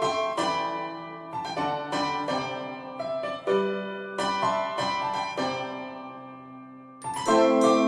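Background music: a piano playing a riff of struck notes and chords that ring out and fade, growing fuller and louder about seven seconds in.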